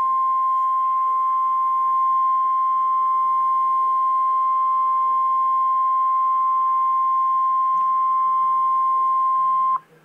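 Emergency Alert System warning alarm tone, the single 1050 Hz tone used by NOAA Weather Radio, marking a severe thunderstorm warning. It is one steady, loud tone that cuts off abruptly near the end.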